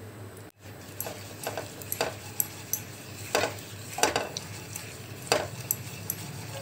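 A spoon scraping and tapping against a hot nonstick pan as it spreads cooking oil, a quick irregular run of strokes about every half second, with the oil sizzling.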